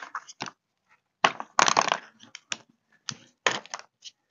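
Hand tools clattering and clicking during engine work: a string of sharp, irregular knocks, densest between one and two seconds in, with a few scattered ones after.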